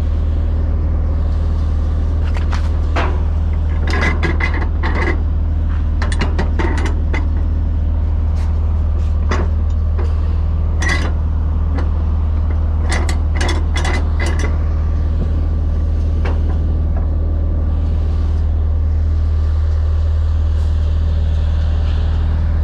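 Sharp metallic clicking of a flatbed trailer's cargo-strap winch ratchet, in short clusters of quick clicks as the strap is worked, over a steady low engine hum.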